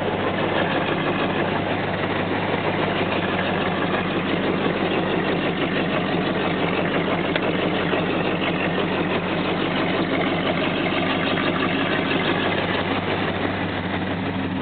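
1983 Chevy Silverado pickup's engine idling steadily while it warms up after a cold start.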